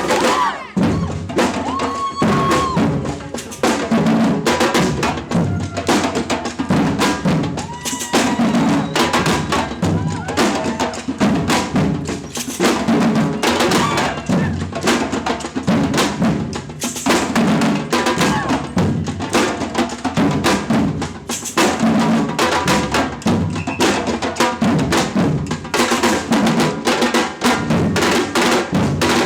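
Samba percussion group drumming a steady, driving rhythm on bass drums and snare drums together.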